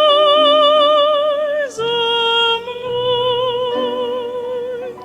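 Female solo voice singing with vibrato to piano accompaniment, holding the long final notes of a hymn refrain: one sustained note, then a lower one about two seconds in. The voice stops near the end, leaving the piano softly.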